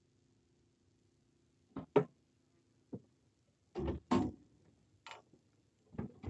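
Scattered knocks and thumps on a fishing boat as people move about on its deck, about seven in all: a close pair about two seconds in, then single knocks roughly every second.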